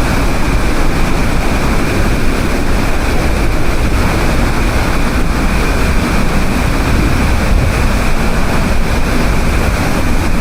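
Loud, steady rushing roar of a large monsoon-swollen waterfall, with wind rumbling on the microphone.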